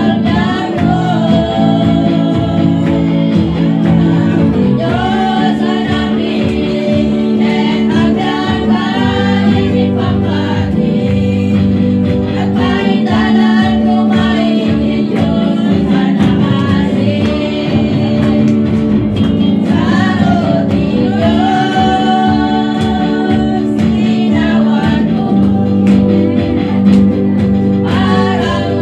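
Women singing a gospel song in Ilocano, accompanied by an electric guitar, with sustained low instrumental notes under the voices.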